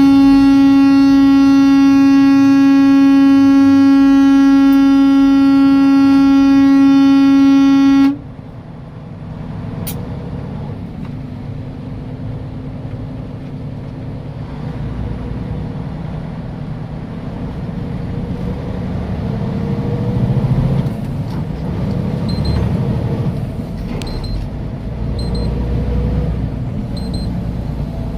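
A single-pitched horn, most likely the truck's air horn, sounds loud and steady for about eight seconds, then cuts off abruptly. The truck's engine and road noise follow, building gradually as it gets under way.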